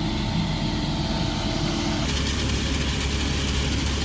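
Concrete mixer truck engine running steadily. The low hum changes abruptly about two seconds in.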